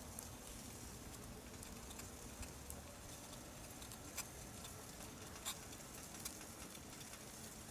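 Small wood fire burning in a portable wood-gas twig stove, with scattered sharp crackles and pops over a faint steady hiss.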